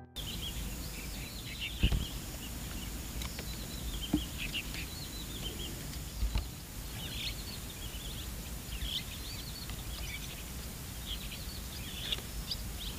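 Small birds chirping and twittering again and again over a steady low outdoor rumble, with a few soft knocks about two, four and six seconds in.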